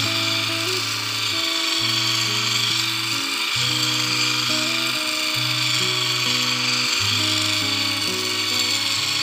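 Background music with slow, held bass notes, over the steady whine and hiss of an electric drill spinning a sharpening disc against a wood planer knife to grind its edge.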